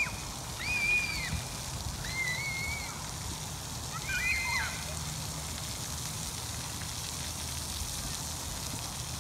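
Steady spray of a splash pad fountain, with children shrieking and calling in high voices at a distance, four short calls in the first five seconds.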